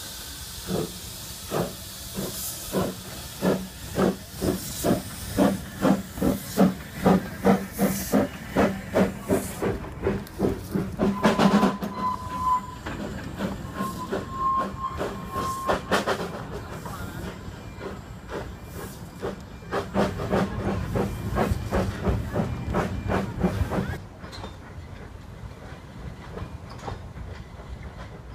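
Narrow-gauge steam locomotive pulling away: loud, regular exhaust chuffs with steam hiss, the beats quickening as it gathers speed. About halfway through, two whistle blasts on one steady note, after which the chuffing carries on and drops to a quieter running sound near the end.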